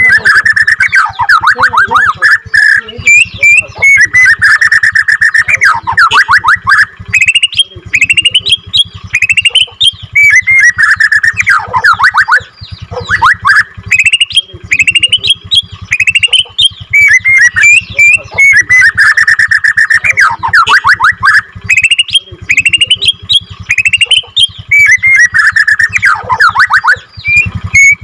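White-rumped shama (Borneo-type murai batu) singing a long rolling song: fast rattling trills and whistled notes repeated in phrases every few seconds.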